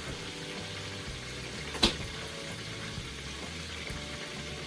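Chicken frying slowly in oil in a covered pan, a steady low sizzle, with one sharp click about two seconds in.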